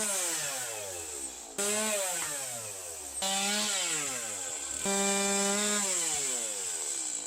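Chainsaw cutting into timber, with four cuts in a row. Each cut starts with the engine running high, and the pitch then sags as the chain bites into the wood.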